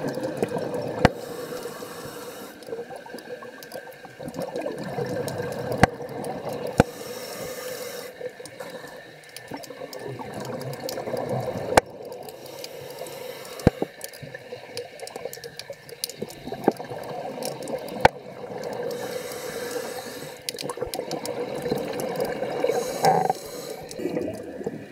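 Underwater sound of a scuba diver breathing through a regulator: exhaled bubbles gurgle and rush in swells every five or six seconds, with a few sharp clicks in between.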